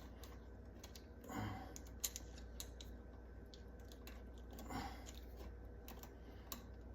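Faint, scattered clicks and small scrapes of a Phillips screwdriver loosening the terminal screw that holds the black wire on an electrical outlet.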